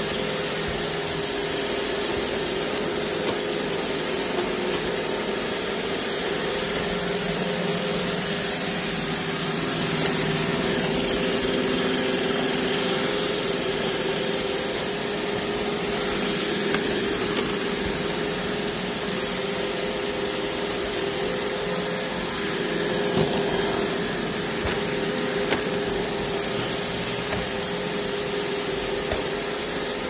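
iRobot Roomba e5 robot vacuum running on hard tile floor: a steady whir from its motor and brushes with a constant hum, and a few brief ticks now and then.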